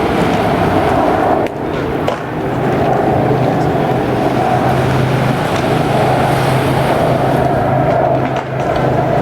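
Jet airliner engines during a landing, a loud steady roar with a low drone and a mid-pitched hum. The roar briefly dips about one and a half seconds in and again near the end.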